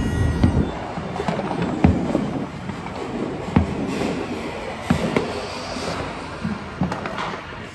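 New Year fireworks and firecrackers going off: about six sharp bangs scattered a second or so apart over a steady haze of crackling.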